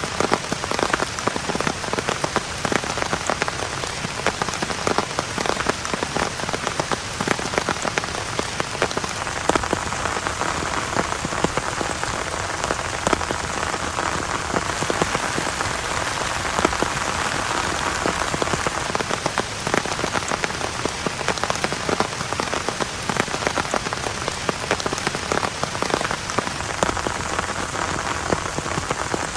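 Heavy rain falling steadily, with a constant wash and many separate drops ticking close by.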